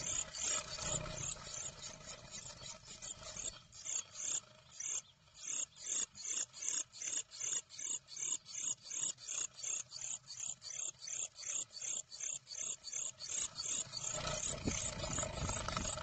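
Blue tits scuffling and calling inside a wooden nest box: a quick run of short sounds repeating about three times a second, more jumbled at the start and denser near the end.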